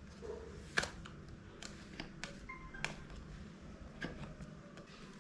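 Scattered light clicks and knocks of plastic fan parts being handled and fitted together during assembly of a small electric fan, the sharpest about a second in.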